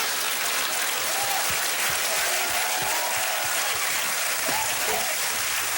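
Studio audience applauding steadily, with faint voices underneath.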